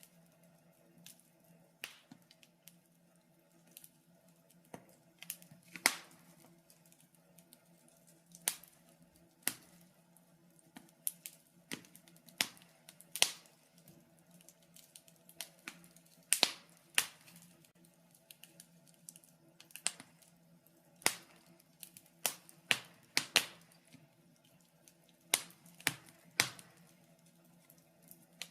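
Wood fire crackling in a fireplace: irregular sharp pops and snaps, several every few seconds, over a faint steady hum.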